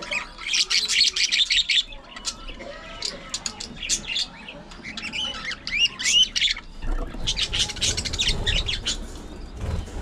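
A flock of budgerigars chattering: quick chirps, warbles and squawks overlapping, thickest about half a second in and again near the end.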